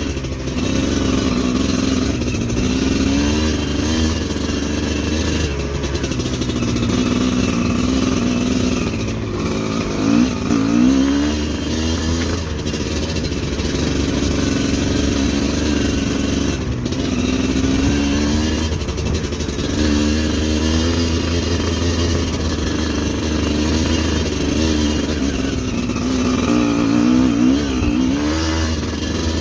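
Motorcycle engine running under way, its revs rising and falling again and again, with a few short knocks.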